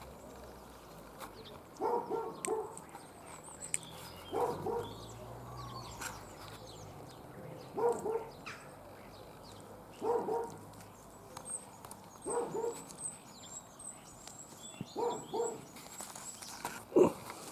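Canine barking in short runs of two or three barks, repeating about every two to three seconds, with faint high bird chirps in the background.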